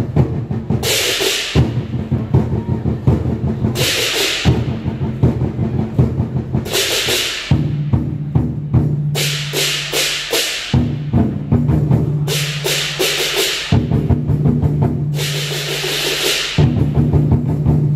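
Large Chinese drums beaten in a fast, steady roll as accompaniment to a dragon dance, with a crash of cymbals recurring about every three seconds.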